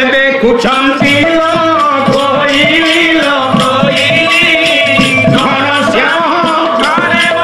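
Odia pala song: a male voice sings a devotional melody in long, gliding phrases over rhythmic percussion.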